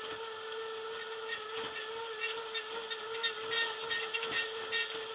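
Boardwalk tram car running along the boardwalk: a steady whine from the drive, with light clicks and rattles that come more often in the second half.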